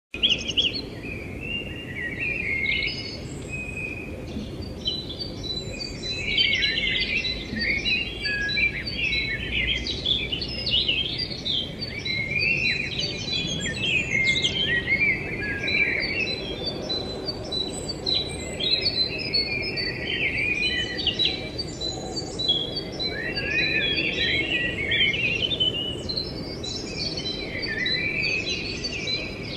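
A chorus of many small birds chirping and twittering, with short calls overlapping all the way through, over a faint thin steady high tone.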